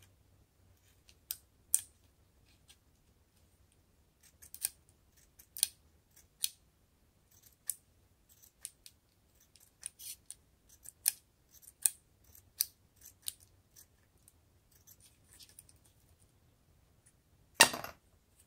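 Steel scissors snipping slits along a plastic drinking straw: a string of short, sharp snips at uneven intervals, with one louder, longer snip near the end.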